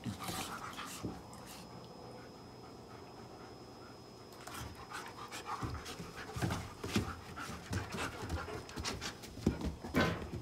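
Two dogs play-fighting: panting and scuffling, with short sudden knocks and scrapes on the wooden deck. A calmer stretch a couple of seconds in, then busier again from about halfway.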